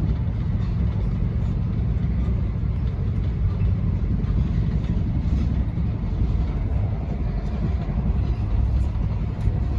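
Passenger train running, heard from inside the carriage: a steady low rumble of wheels and running gear with an even noise above it.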